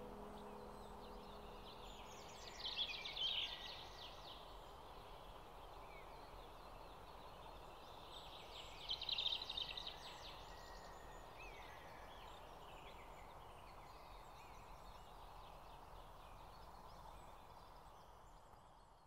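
Faint outdoor ambience under the last held music tones, which die away in the first second. Two short rattling animal calls come about three and nine seconds in, with a brief chirp later. The sound fades out at the very end.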